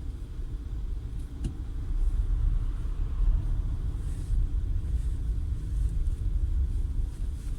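A 2012 Peugeot 408 on the move: a steady low road rumble that grows louder after about two seconds, with one sharp knock about one and a half seconds in. This is the kind of front-end knock the owner is tracking down.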